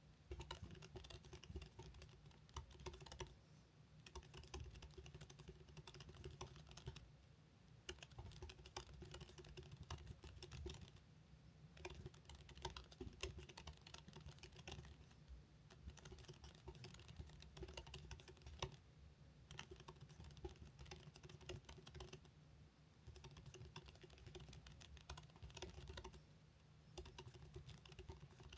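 Fast touch-typing on a computer keyboard: a dense stream of keystrokes in runs of a few seconds, broken by short pauses.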